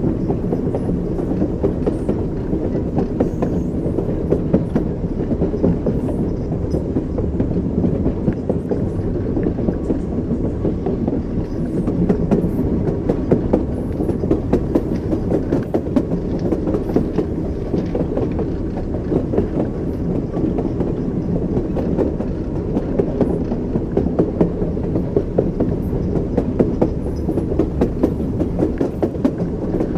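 Train wheels knocking over rail joints, clickety-clack, over a steady low rumble of a moving train.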